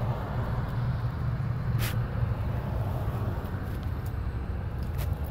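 Steady low rumble of a car heard from inside the cabin, with a few short clicks about two seconds in and near the end.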